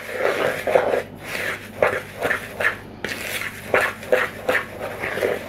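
A fork stirring a dry mix of desiccated coconut, rolled oats and caster sugar in a mixing bowl: irregular scratchy strokes, about three a second.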